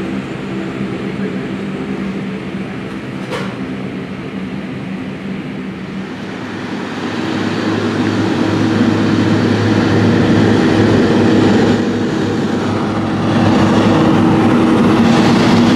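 Bombardier Q400 (Dash 8-400) turboprop with one engine running at ground idle while parked, its propeller turning: a steady drone with a low hum. It gets louder about seven seconds in, heard close up on the apron.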